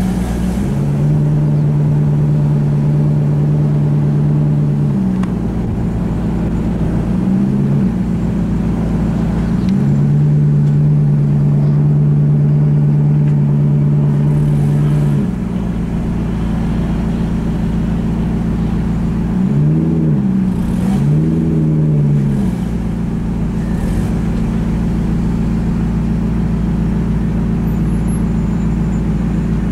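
Alfa Romeo 8C Spider's 4.7-litre V8 running at low speed through its twin exhausts, holding a steady note for several seconds at a time. Short throttle blips rise and fall in between, two in quick succession about twenty seconds in.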